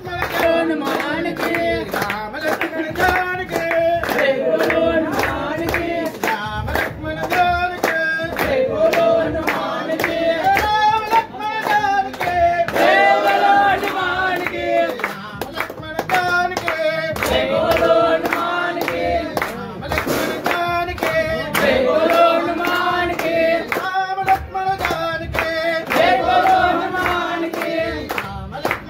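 A group of men singing a devotional chant together, keeping time with steady rhythmic hand-clapping.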